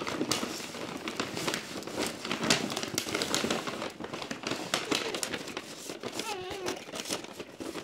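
Cardboard cake box being handled and opened: irregular rustling, scraping and small knocks of the cardboard.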